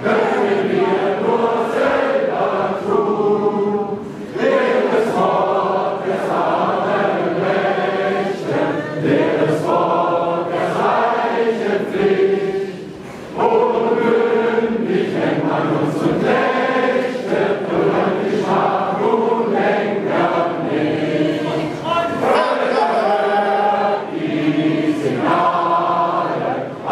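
A large group of voices singing together in held, chant-like lines, with a short break about halfway through.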